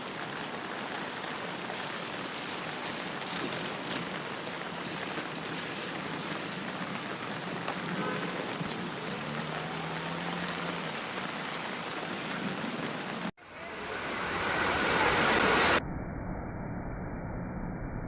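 Waterfall: a steady rush of falling water. About thirteen seconds in it cuts out abruptly, a louder rushing noise swells up for about two seconds, then a duller, muffled steady rush takes over.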